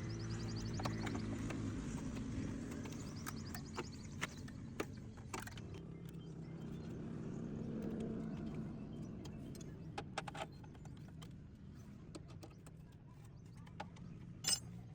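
Motorcycle engine running steadily at idle, with scattered clicks and knocks over it and one sharp knock near the end.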